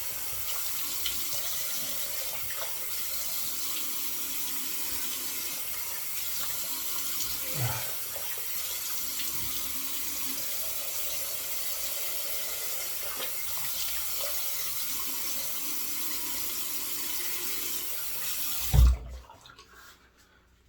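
Bathroom sink tap running steadily into the basin. Near the end there is a single loud knock, and then the running water stops.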